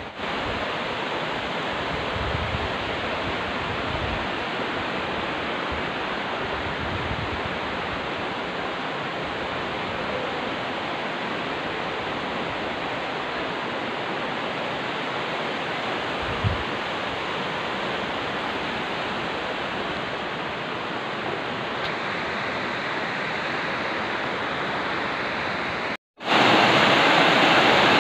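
Steady rushing of a shallow river flowing over stones. Near the end, after a short break, the rushing is louder and brighter, from water cascading over rocks close by.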